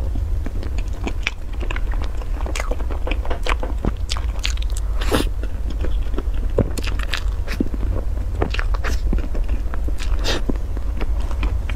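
Close-up mouth sounds of a person biting into and chewing a soft white dessert ball: irregular wet smacks and sharp clicks, several a second, over a steady low hum.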